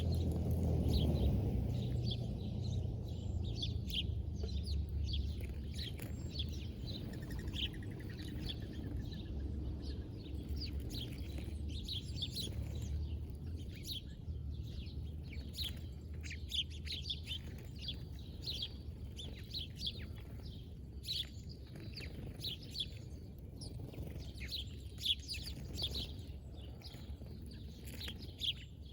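Many small birds chirping in quick, short calls, over and over, at a bird feeder, over a steady low rumble.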